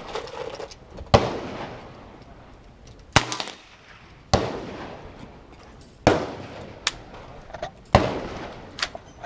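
Gunshots at a shooting range: five loud shots spaced one to two seconds apart, each with an echoing tail, and a couple of fainter shots between them.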